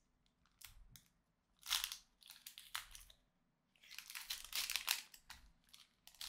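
Foil wrapper of a Pokémon trading-card booster pack crinkling and tearing in short bursts as hands work it open. The loudest rustles come just under two seconds in and again from about four to five seconds.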